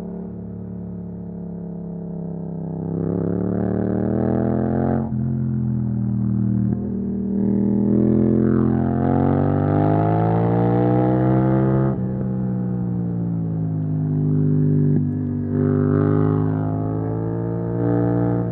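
Yamaha MT-07's parallel-twin engine through an Akrapovic exhaust, accelerating under load: the revs climb, fall sharply about five seconds in, climb again and fall sharply near the middle, then run steadier with a couple of short rises near the end.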